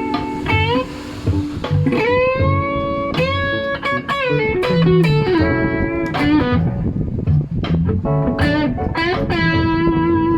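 Elegee Alab series Telecaster-style electric guitar playing single-note lead lines, with held notes bent upward in pitch, recorded straight to a phone.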